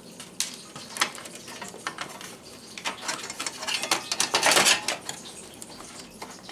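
Snipping and handling noises as a zip tie is cut off a bundle of power-supply wires: a couple of sharp clicks, then a quick flurry of clicks and a longer rustle of the wires being moved.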